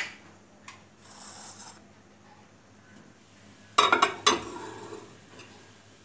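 Glass bowl set down on a microwave oven's glass turntable: two clinking knocks about half a second apart, after a faint scrape.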